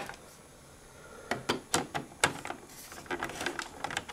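Light clicks and taps of small plastic parts being handled as the rubber drive belt of a CD tray mechanism is fitted back on, with a quick run of them about a second in and a few fainter ones later.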